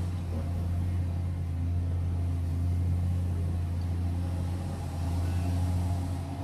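Cat 345GC hydraulic excavator's diesel engine running under working load with a steady low drone as the boom lifts and the arm reaches out.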